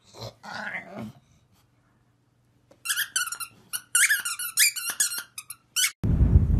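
A dog's squeaky plush toy squeaked over and over as a pug chews on it: a rapid run of short, high squeaks in the second half. Wind buffets the microphone near the end.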